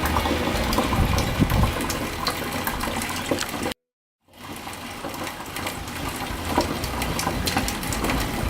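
Liquid running and splashing steadily into a vessel, broken by a half-second of dead silence about four seconds in.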